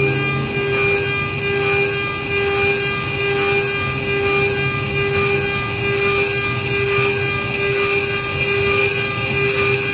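Micro CNC mill's spindle whining as its small end mill cuts aluminium, milling a round pocket. The cutting sound swells and eases about once a second.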